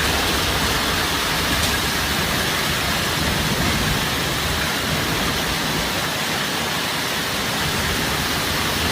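Heavy storm downpour: a dense, steady hiss of precipitation hitting surfaces, with no separate strikes standing out.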